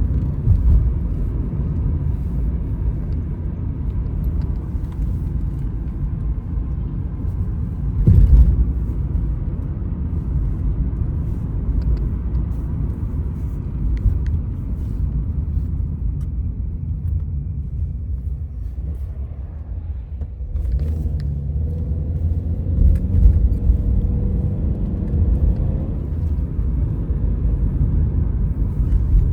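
Steady low rumble of a vehicle, with a brief louder thump about eight seconds in.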